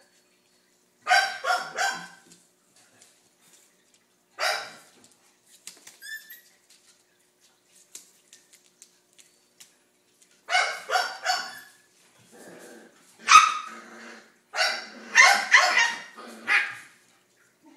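Dog barking in short, high-pitched barks: three quick barks about a second in, a single bark a few seconds later, then a run of bark clusters through the second half.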